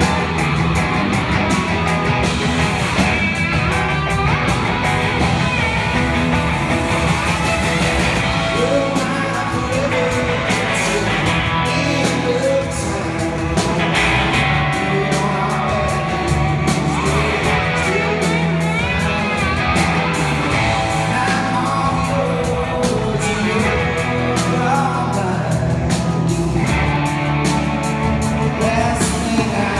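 Live rock band playing, with electric guitars over drums and a singing voice.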